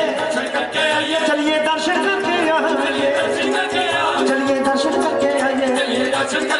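A male singer sings a Punjabi devotional jagran song (a bhent to the Mother Goddess) live into a microphone. He is backed by a stage band with keyboard and dhol keeping a steady beat.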